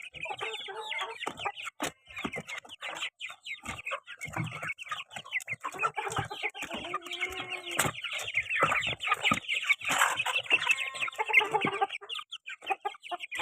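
A flock of domestic chickens clucking and calling over one another in quick, overlapping calls. About halfway through, one bird gives a longer call that rises and falls.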